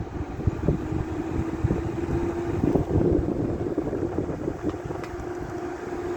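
An 8000 BTU air conditioner starting from cold and running: a low, uneven rumble with a steady hum that settles in about three seconds in.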